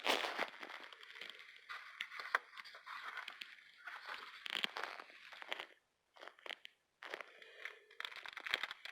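Irregular rustling and crackling with small clicks, dry leaves and debris being handled in a car's cabin filter housing, with a short gap about six seconds in.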